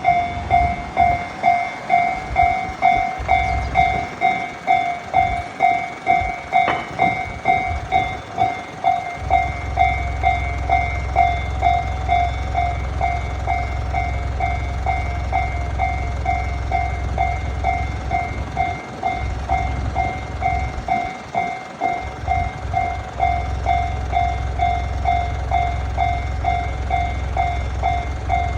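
Japanese railway level-crossing warning bell ringing steadily, just under two dings a second, as the crossing signals an approaching train. A steady low rumble sets in about a third of the way through and carries on to the end.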